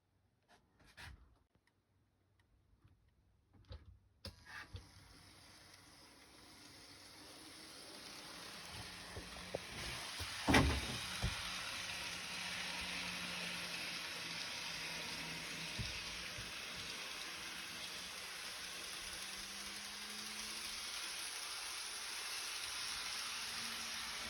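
Model train running on its track: a steady hissing, rolling noise starts suddenly a few seconds in and slowly grows, with a faint motor hum that rises slightly in pitch near the end. There are a few light clicks at the start and one sharp click about ten seconds in.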